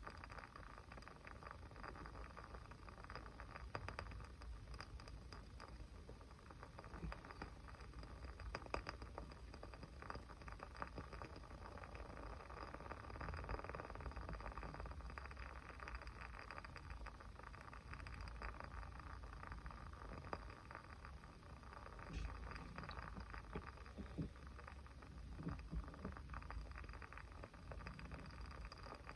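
A small fire crackling: frequent irregular pops and snaps over a soft steady hiss.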